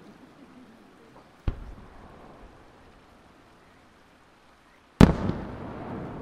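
Aerial firework shells bursting: a sharp bang about a second and a half in, then a much louder bang near the end with a few smaller cracks after it, each bang trailing off in echo.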